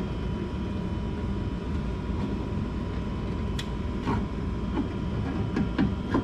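Small clicks and knocks of pliers and hand-held parts working inside a car door, a handful in the second half, over a steady low rumble and a faint steady hum.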